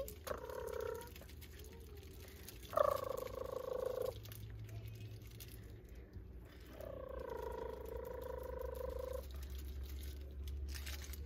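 Persian kitten mewing three times: a short mew at the start, a louder one about three seconds in, and a long drawn-out mew lasting over two seconds about seven seconds in.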